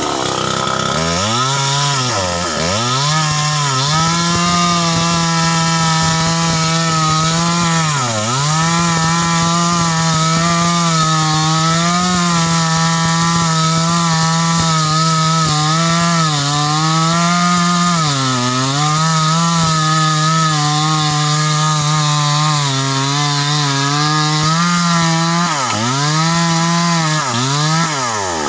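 Stihl 070 two-stroke chainsaw running at high revs while cutting wood. Its pitch dips briefly several times as the chain loads up in the cut, then recovers.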